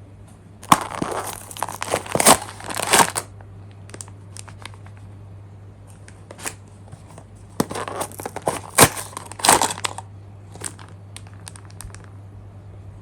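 Plastic packaging being crinkled and torn open by hand, in two spells of dense crackling a few seconds apart, then a few light ticks. A steady low electrical hum sits underneath.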